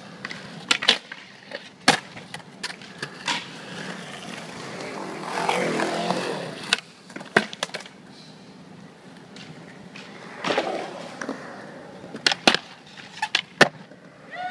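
Skateboard wheels rolling on concrete, swelling louder twice. Sharp clacks of the board striking the concrete come a dozen or so times, loudest near the middle and towards the end.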